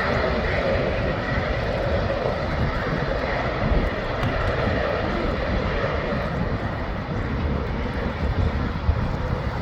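Jet engines of an Airbus A330-300 airliner on its landing approach: a steady rushing drone with a faint whine in the first few seconds that eases slightly later on.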